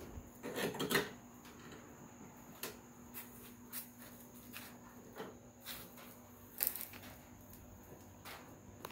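Scattered light knocks and clicks of prop parts being handled during assembly, a quick cluster in the first second and then single ones every second or so, over a faint steady hum.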